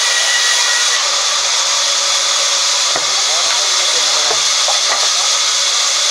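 Sawmill band saw running with a steady loud hiss as its blade cuts through timber, with a few knocks after about three seconds.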